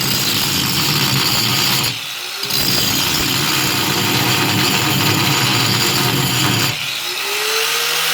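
Angle grinder grinding down the head of a steel seat bolt and its plate in a school bus floor, a loud, harsh grinding noise. It eases off twice, about two seconds in and near the end, each time with a short rising whine.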